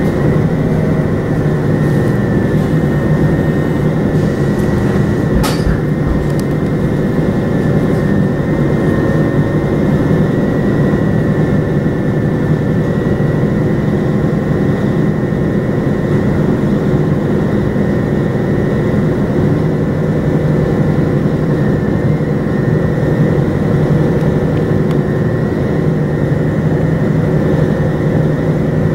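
A vehicle engine running steadily, with a single sharp click about five seconds in.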